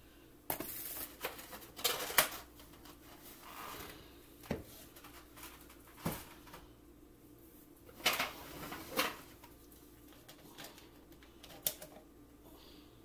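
Irregular kitchen handling noises at a mixing bowl: sharp knocks and clatter of containers and utensils. There is a run of clatter in the first two seconds, single knocks around the middle, another clatter about eight seconds in and a sharp tick near the end.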